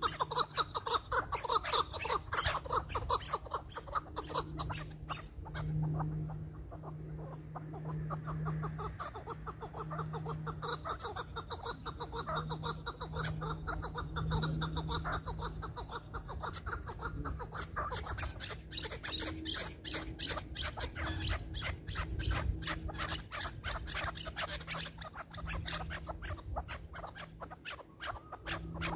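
Chukar partridges calling: long runs of rapid, clucking chuk notes that ease off briefly and pick up again, over a low hum that comes and goes.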